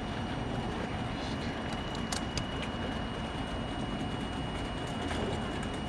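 Steady hum of electric trains standing at a station platform, with a thin high whine held throughout and a few faint clicks about two seconds in.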